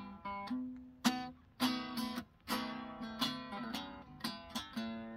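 Acoustic guitar played by hand: a few picked single notes, then strummed chords from about a second in.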